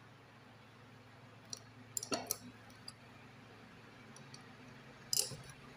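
Faint metallic clicks and clinks of a steel ring spanner on the tappet adjuster locknut of a Hero Splendor Plus cylinder head, heard while the tappet clearance is being set. There are a few scattered taps, the loudest about five seconds in.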